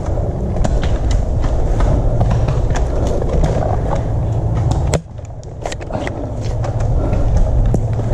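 Rumbling wind and movement noise on a body-worn camera's microphone, with many scattered sharp clicks and taps. The rumble drops suddenly about five seconds in, then builds up again.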